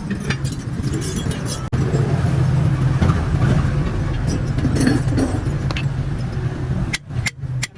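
A motor vehicle engine running steadily, with a few sharp metallic clicks and clinks near the end.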